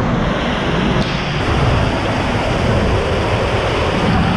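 Waterfall pouring close by: a loud, steady rush of falling water.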